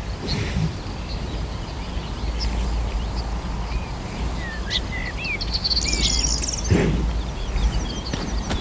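Wind rumbling on the microphone, with songbirds calling over it: a fast high trill and several short whistled chirps, mostly in the second half. A few footfalls on the dirt trail, the clearest near the end.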